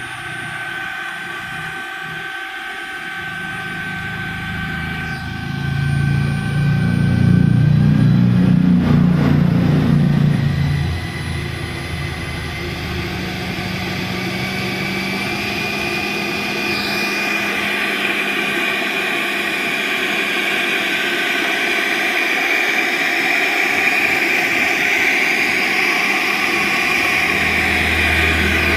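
70mm 12-blade electric ducted fan in an RC jet model, run on a 3S LiPo, whining steadily under throttle. About six seconds in it gets louder with a deep rumble for several seconds, then drops back, and its whine climbs in pitch and holds high and steady.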